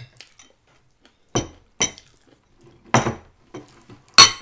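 Tableware clinking: a few sharp clinks, each with a short ring, the loudest near the end.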